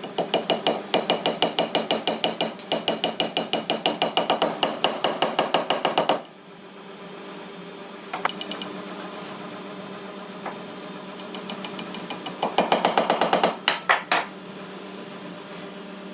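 Rapid, even hammer taps, about six a second, for around six seconds. A brief flurry of taps follows, then a second fast run of strikes near the end.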